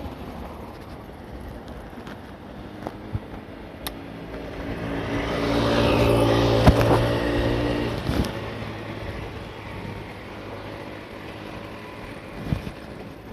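A motor vehicle driving past. Its engine grows louder over a few seconds, is loudest about halfway through, then fades away. A few short sharp clicks are heard, the loudest when the vehicle is closest.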